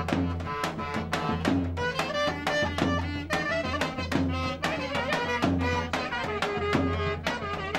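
Live folk dance music: a clarinet plays a quick, ornamented melody over a steady, driving drum beat.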